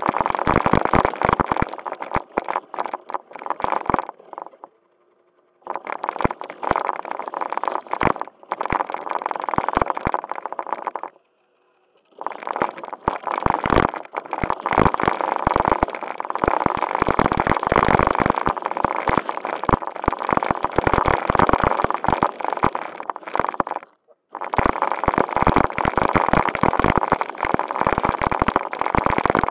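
Onboard sound of a JJRC Q76 4WD RC car driving: its small electric motors and gears whirring under a dense rattle and crackle from the wheels on gravel and concrete, heard from a camera mounted on the car. The noise cuts out almost completely three times, about four seconds in, about eleven seconds in and briefly near the end.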